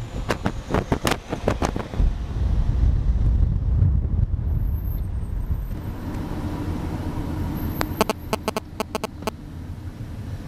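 Car driving, heard from inside the cabin: a steady low road-and-engine rumble. Quick clusters of sharp clicks come in the first couple of seconds and again about eight seconds in.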